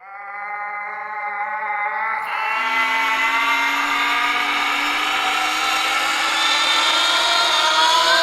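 A man screaming in one long, harsh, held scream that jumps higher in pitch about two seconds in and grows louder.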